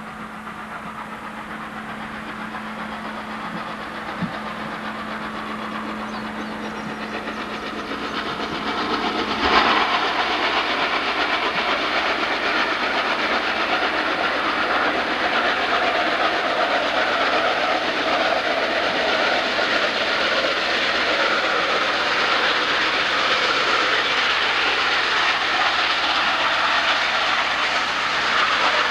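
Norfolk & Western Class A 2-6-6-4 steam locomotive No. 1218 climbing the grade with a heavy passenger train, its working exhaust heard through the tunnel and growing steadily louder as it approaches. About ten seconds in the sound suddenly gets louder and fuller as the engine enters the tunnel bore.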